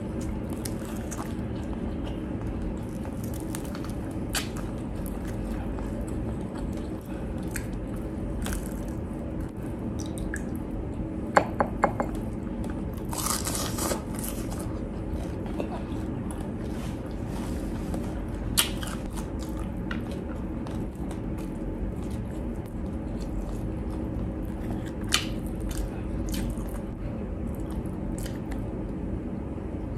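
Close-miked eating of crispy fried pork: wet chewing and scattered crunchy bites over a steady low hum. Three sharp clicks in quick succession come about eleven seconds in, and a louder crunch a little after.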